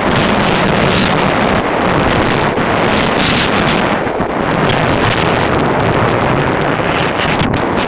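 Loud wind buffeting the microphone of a helmet camera on a mountain bike riding fast downhill, mixed with the rumble of knobby tyres rolling over gravel.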